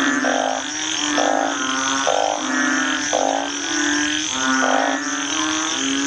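Chorus of frogs calling: a steady low drone with buzzing trills that come about once a second.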